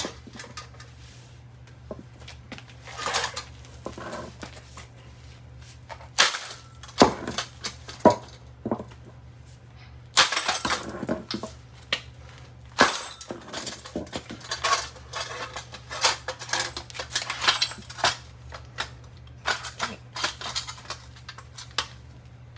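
Irregular metallic banging and clattering as a Harbor Breeze ceiling fan's aluminum blade and mount are struck and worked loose, some hits single and sharp, others in rattling runs of a second or so. A steady low hum runs underneath.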